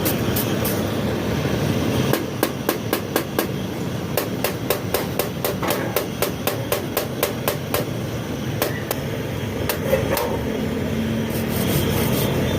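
Light hammer taps on the metal of a radiator tank, about three a second at an even pace, starting about two seconds in and stopping near ten seconds, over steady background noise.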